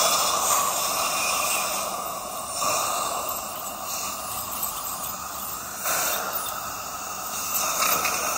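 Dental suction hissing at the patient's mouth during dental work, its strength shifting every few seconds.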